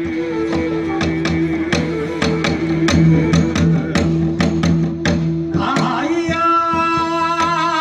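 Korean folk music: a bamboo flute holds one long low note over a steady drone while a Korean buk barrel drum is struck in a steady beat, about three to four strokes a second. About two-thirds of the way through, a higher wavering melody with vibrato comes in.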